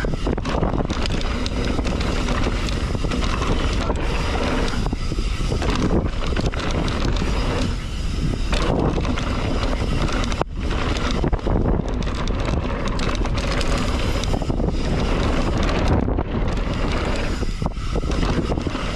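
Mountain bike descending a jump trail at speed: wind buffeting the microphone over the steady rush of tyres on dirt, with frequent short knocks and rattles from the bike over bumps and landings.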